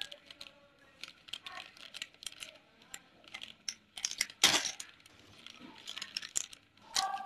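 Plastic parts packet crinkling and rustling as it is handled, with light irregular clicks and clinks from metal pliers held in the same hand. A louder rustle comes about four and a half seconds in.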